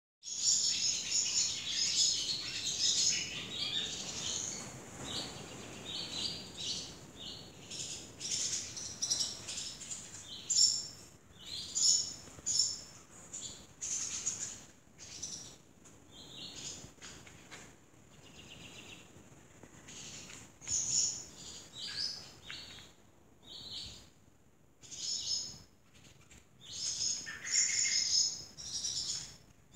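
Swallows twittering: many quick, high-pitched chirps in clusters, busiest at the start and again near the end.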